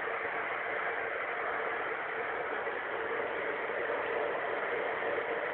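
Steady road noise of a car driving along a highway, heard from inside the cabin: tyre rumble, wind and engine blended into an even rush with a faint steady hum.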